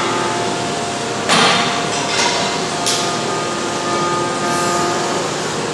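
Gym ambience: a steady background hum and hiss with three sharp metallic clanks, like weights or barbell plates knocking, about one, two and three seconds in.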